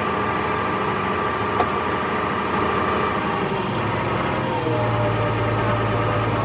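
Farm tractor engine running steadily, its low hum shifting about four and a half seconds in, with one short click about a second and a half in.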